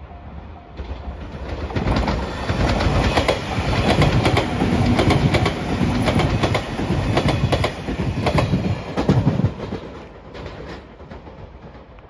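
Five-car Anpanman-wrapped Shiokaze limited express train passing close by at speed. Its running noise builds over about two seconds, then the wheels click rapidly over the rail joints, and the sound dies away about ten seconds in.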